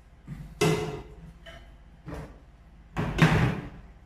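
Hard objects being handled and set down on a tabletop, a small empty glass tank and a plastic computer fan: a handful of knocks and clatters, the loudest about three seconds in.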